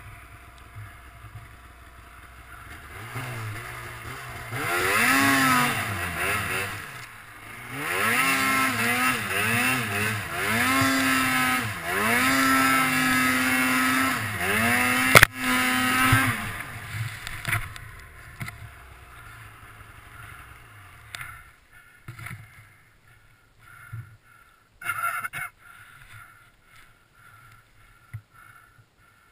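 Snowmobile engine revving in repeated surges, its pitch rising and falling, from about four seconds in until about sixteen seconds in, with a sharp knock near the end of the revving. It then drops to a low idle, with a few scattered knocks and thumps.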